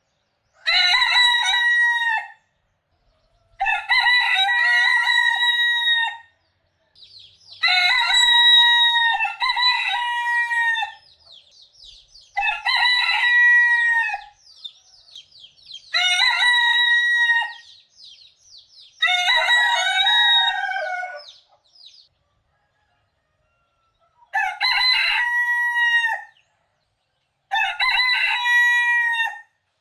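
Roosters crowing one after another: about nine long crows of roughly two seconds each, with short pauses between them and fainter calls heard in some of the gaps.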